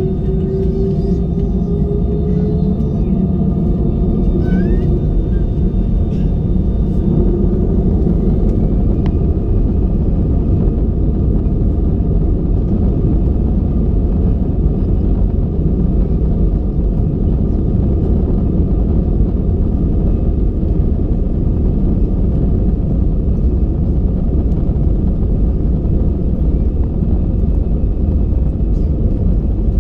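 Airbus A320 jet engines spooling up to takeoff thrust, heard from inside the cabin: a whine rising in pitch over the first few seconds, then a loud, steady rumble as the airliner rolls down the runway.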